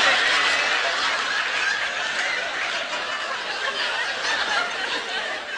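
A large audience laughing, loudest at the start and slowly dying down.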